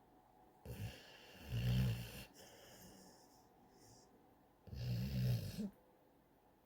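A dog snoring in her sleep: two loud snores about three and a half seconds apart, each lasting about a second.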